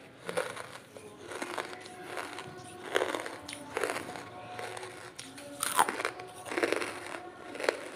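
Dry lump charcoal crunching and crackling: a string of sharp crunches, roughly one a second, the loudest about six seconds in.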